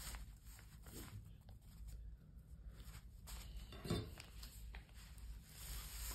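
Faint rustling of a football shirt's fabric as hands smooth and handle it, with one brief, slightly louder short sound about four seconds in.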